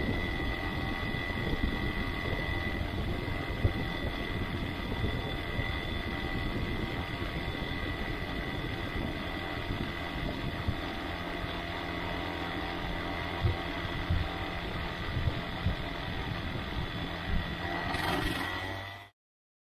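Microlight trike's engine and pusher propeller running steadily while the trike rolls across grass, with a rough low rumble underneath. The sound cuts off suddenly near the end.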